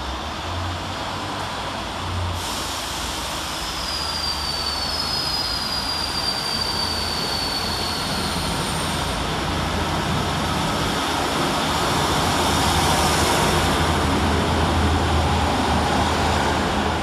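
Class 150 Sprinter diesel multiple unit pulling out, its underfloor diesel engines droning steadily and growing louder as it draws up past. A thin high squeal slides slightly down in pitch from about four to nine seconds in.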